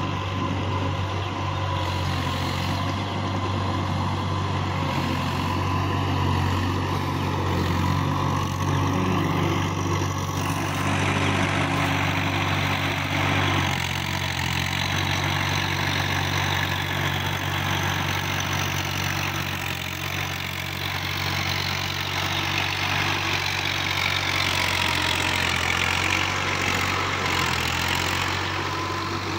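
Swaraj 855 FE tractor's three-cylinder diesel engine running steadily under load as it pulls a rotary tiller through flooded paddy mud, with a churning, splashing hiss from the tiller and water over the engine hum. The sound shifts in character about ten seconds in.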